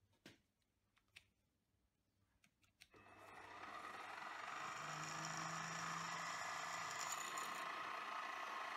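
A few faint clicks, then about three seconds in the spindle motor of a hobby lathe/mill combo's mill head starts up, rising within a second or so to a steady run.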